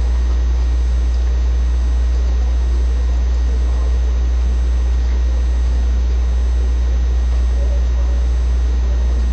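Steady low hum with a faint constant hiss over it; no speech.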